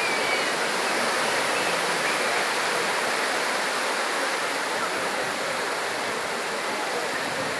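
Steady rushing noise of water at a beach, with no swells or breaks, and a few faint distant voices.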